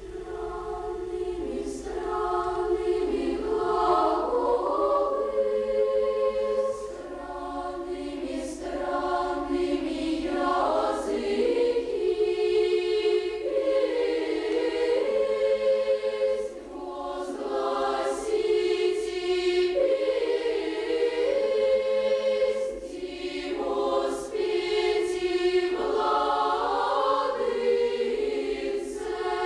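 Children's choir singing a cappella in several parts, sustained chords in long phrases with short breaks between them.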